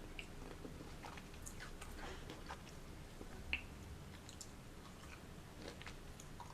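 Close-miked chewing and biting of juicy fruit: soft, wet mouth clicks and crackles throughout, with one sharper click about halfway through.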